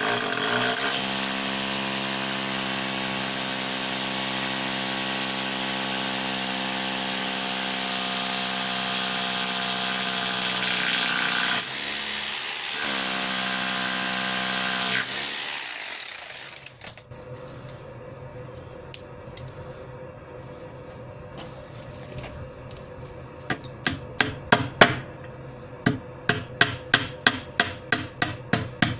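Corded hammer drill with a masonry bit boring through a timber post into brick, running steadily for about eleven seconds, easing briefly, then running again and winding down about sixteen seconds in. Near the end comes a quick run of sharp hammer taps on a screw set in the drilled hole.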